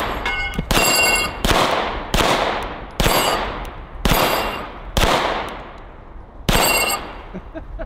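SAR9 X 9mm pistol firing seven shots about a second apart, with a longer pause before the last, at steel targets. Several shots are followed by the brief ring of a hit steel plate.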